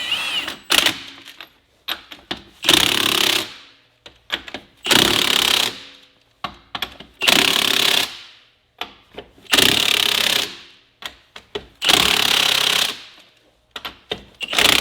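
Impact wrench hammering lug nuts onto a wheel loader's wheel in about six bursts of around a second each, with small clinks between them as it moves from nut to nut. The nuts are being run down snug, not yet torqued to spec.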